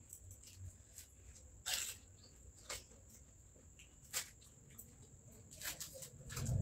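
Crisp phuchka (pani puri) shells crunching as they are cracked and eaten: a few short, sharp crunches about a second apart, the loudest about two seconds in, over a faint steady high whine.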